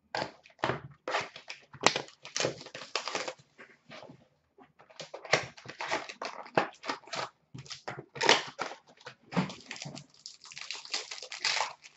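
Packaging of a hockey card box being torn open and the cards unwrapped: irregular crinkling, rustling and tearing.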